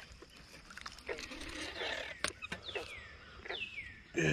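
A bluegill being reeled in and lifted from the pond: light splashing and a few sharp clicks, with three short whistle-like calls that fall in pitch. A man's voice starts right at the end.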